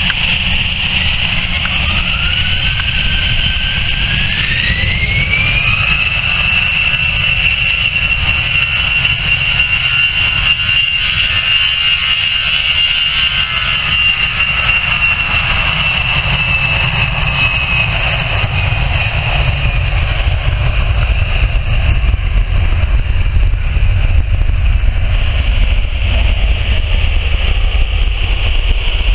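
Twin jet engines of an easyJet Airbus A320-family airliner spooling up for takeoff. A whine rises in pitch over the first few seconds, then holds steady. Beneath it runs a low rumble that grows louder in the last several seconds as the jet accelerates down the runway.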